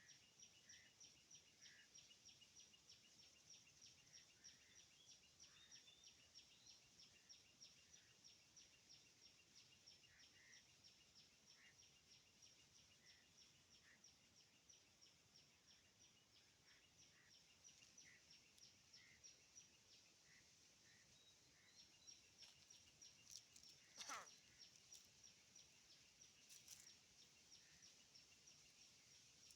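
Faint field ambience: an insect chirping steadily at about four pulses a second, with scattered short bird calls and one sharp click about four-fifths of the way in.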